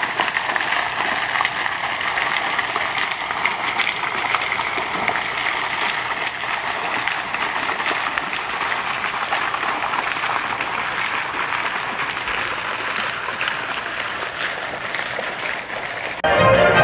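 Two fountain jets splashing into a pond, a steady rush of falling water. Near the end it gives way abruptly to louder orchestral music.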